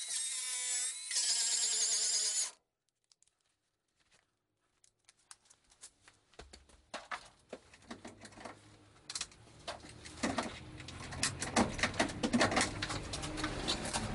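A power tool working on steel body panels. A whining tool cuts off suddenly about two and a half seconds in. After a short silence comes irregular scraping and clicking over a low hum, growing louder toward the end.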